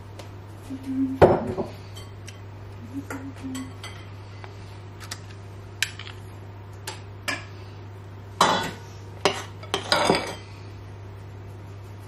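Metal spoons clinking and scraping as thick chocolate muffin batter is scooped from a bowl and spooned into paper cases in a metal muffin tin. The clinks are scattered, with louder clatters about a second in and again near the end, over a steady low hum.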